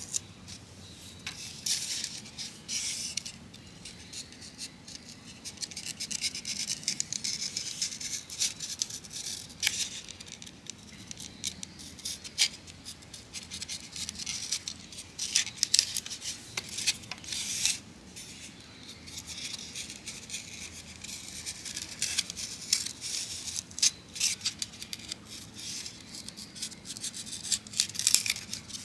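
Craft knife blade cutting through a white polystyrene foam lunch-box tray: an irregular scratching and crackling that comes and goes with each stroke of the blade along the marked circles.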